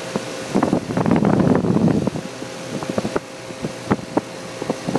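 Guardian central air-conditioner condenser unit with a Bristol compressor running with a steady hum. Over it come a loud rush of noise about a second in and scattered sharp clicks.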